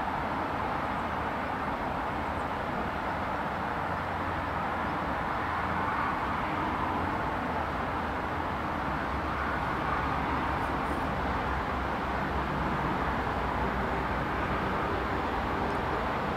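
Electric freight train approaching at a distance: a steady rolling rumble that grows slowly louder as the locomotive and its wagons draw nearer.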